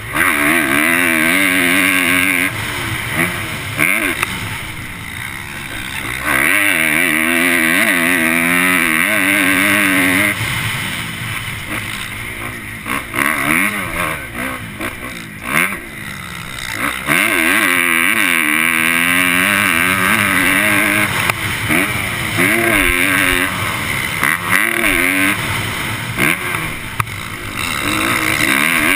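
Motocross bike engine heard from a helmet-mounted camera, pulling hard at full throttle with its pitch climbing, then dropping off and blipping where the rider backs off for corners, several times over.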